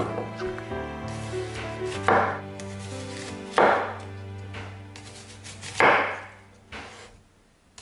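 A cleaver slicing through a raw onion into rounds, the blade striking the wooden cutting board four times, each cut a crisp chop about two seconds apart. Soft background music plays underneath and fades near the end.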